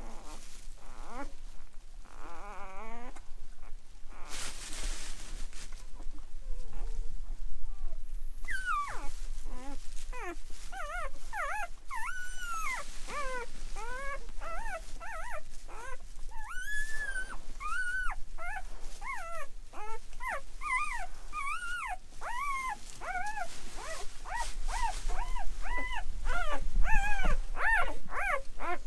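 Newborn Great Pyrenees puppy whimpering and squealing: short, high cries that rise and fall, a few at first, then coming quickly one after another from about eight seconds in.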